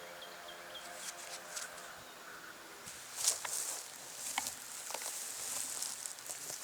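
Digging into soil with a hand digging tool: scattered sharp strikes and scraping, rustling dirt, the loudest strike about three seconds in, while digging out a metal detector target. A faint rapid chirping fades out in the first second.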